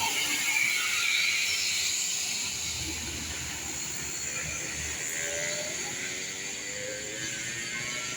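A large bus driving past, with steady engine and road noise and a faint engine note rising slowly about two-thirds of the way through.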